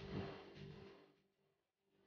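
Faint background music that fades out about a second in, followed by dead silence.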